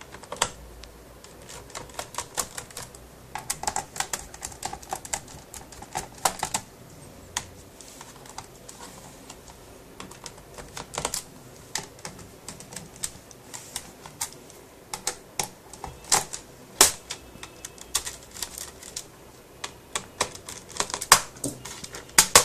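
Irregular small clicks and taps of a screwdriver undoing the screws of a laptop's plastic bottom access panel, then of the panel being worked loose and lifted off.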